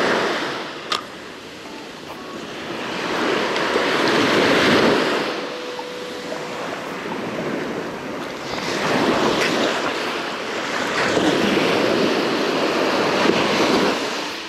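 Small waves breaking and washing up a sandy beach, the surf swelling and fading about every four to five seconds.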